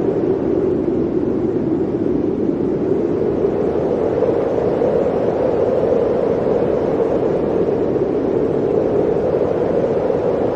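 Blizzard wind blowing steadily, a low rushing noise whose pitch drifts slightly higher about halfway through.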